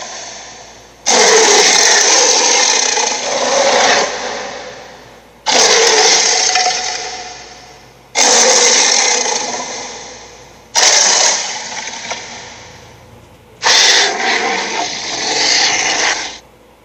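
Sharptooth's dinosaur roar sound effect, heard five times a few seconds apart: each roar is loud and rough, starts suddenly and fades away.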